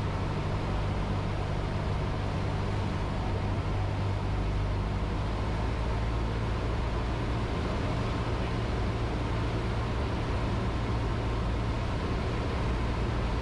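Cessna 152's four-cylinder Lycoming engine running steadily in flight with airflow noise, heard from inside the cockpit as an even drone.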